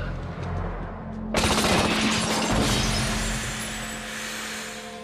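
Sustained burst of automatic assault-rifle fire starting suddenly about a second and a half in: a dense run of shots that tails off over the next few seconds. A low droning score runs underneath.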